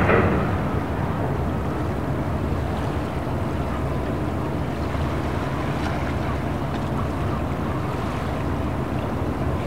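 Low, steady rumble of boat engines running in the harbour, over a haze of water and wind noise. A short, loud rush of noise comes right at the start and fades within half a second.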